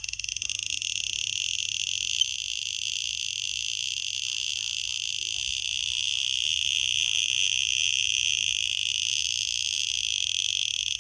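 Handheld radiation detector sounding off, its clicks so rapid that they run together into a steady high buzz: a high count rate from coal carrying yellow uranium oxide. It stops suddenly at the end.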